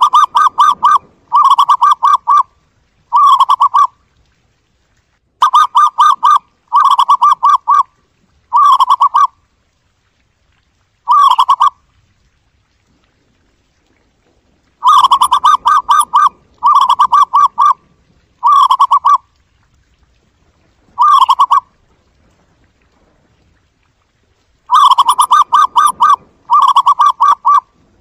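Zebra dove calling: rapidly pulsed, trilling coos, each lasting under a second. They come in bunches of two to four, with single notes and pauses of a few seconds between bunches.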